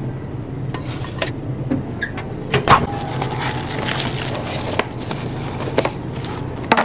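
Food packaging being handled over a steady low hum: a few clicks and a sharp knock near the microwave, then the rustle and crinkle of a plastic-lidded paper tteokbokki cup being opened and its plastic packets of rice cakes and sauce being handled.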